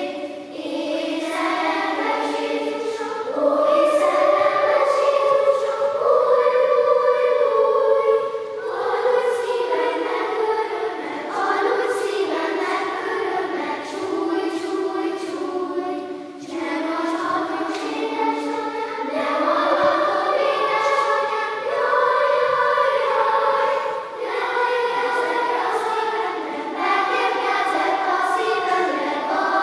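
Children's choir singing in a large church, phrase after phrase with short breaks between them.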